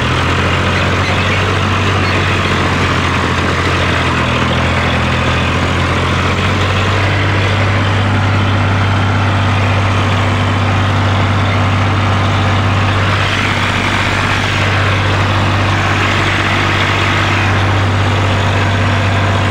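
Tractor's diesel engine pulling a fully loaded trolley uphill in high-range first gear, running steadily under heavy load with a constant low drone.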